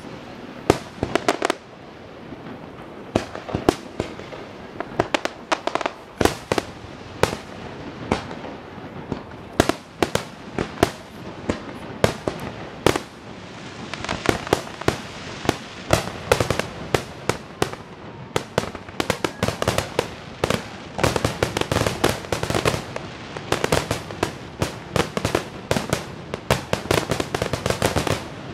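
Fireworks finale: aerial shells bursting one after another, the bangs spaced out at first and coming thicker and faster from about halfway, then in a near-continuous barrage.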